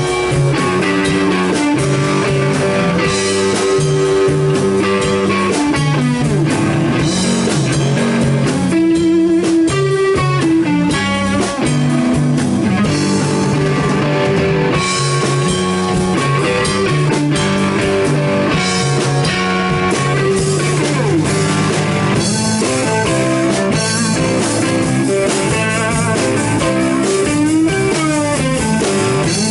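Blues rock band playing live without vocals: electric guitar over bass guitar and a drum kit, the guitar bending and wavering its notes in places.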